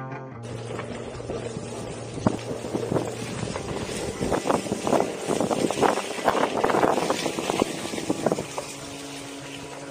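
Wind buffeting the microphone and a Onewheel's fat tyre rolling fast over a gravel and leaf-covered forest trail, with a dense run of crackles and knocks in the middle. A steady hum comes in near the end.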